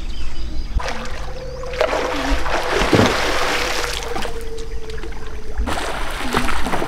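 Swimming-pool water splashing and lapping as people swim. There is a steady hum through most of it and sharper splashes near the end.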